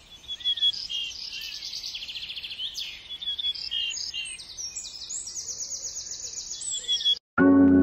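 Wild songbirds chirping and singing in quick trills of rapidly repeated high notes. The birdsong cuts off suddenly near the end, and organ music starts.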